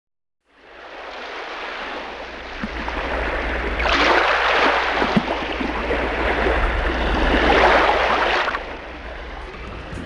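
Ocean surf: a wash of breaking waves that fades in, swells twice as waves come in, then eases off near the end, over a steady low rumble.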